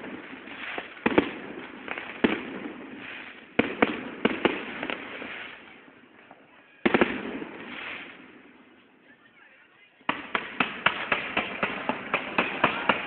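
Fireworks going off: sharp bangs with crackling between them, easing off about eight seconds in, then from about ten seconds a quick string of pops, several a second.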